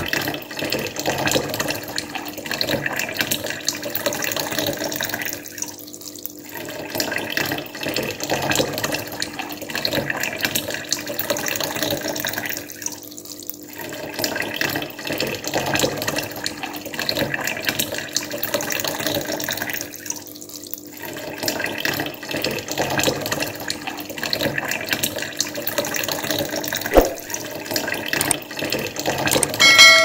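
Water steadily trickling and splashing from the spouts of a small tiered tabletop waterfall fountain into the basins below, with a single click near the end.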